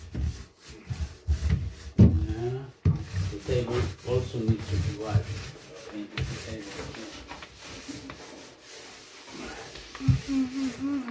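Small foam paint roller rolled back and forth over a cabinet shelf, a rubbing sound in repeated strokes as paint goes on the shelf. A voice sounds faintly at times, about two seconds in and near the end.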